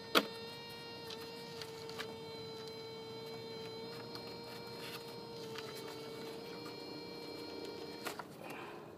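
An RC jet's rudder servo buzzing while stalled: a steady high hum with overtones that cuts off with a click about eight seconds in. It is a weird sound, kind of like a motor, which the owner takes for a stripped servo jammed in one position.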